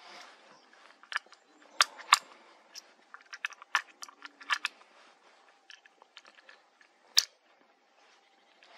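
Rifle cartridges being handled and pressed into a bolt-action rifle's magazine: a string of short, sharp, irregular clicks, the loudest around two seconds in and again near the end.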